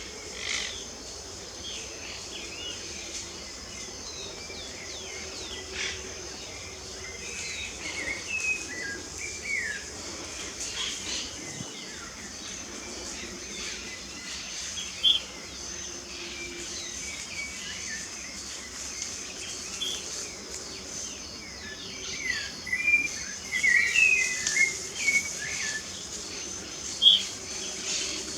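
Birds chirping and singing in short scattered notes, busiest about a third of the way in and again near the end, over a steady high-pitched insect drone.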